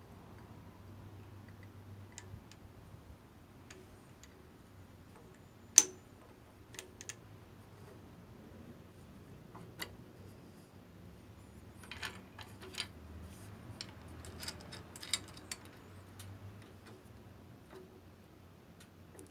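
Scattered light clicks and taps of small hard parts being handled, with one sharp click about six seconds in and a busier run of clicks between about twelve and sixteen seconds; no drill is running.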